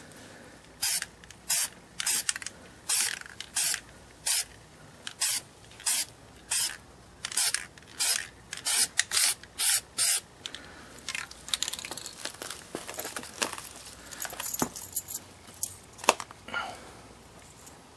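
Aerosol spray-paint can sprayed in about fifteen short, quick hisses over ten seconds. Softer scraping and rustling of the mesh and magazine being handled follow.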